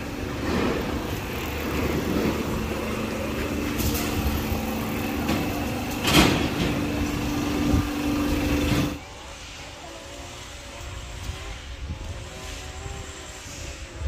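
Outdoor background with a steady motor hum of two low tones, broken by a short sharp sound about six seconds in. About nine seconds in, it cuts abruptly to a much quieter outdoor background.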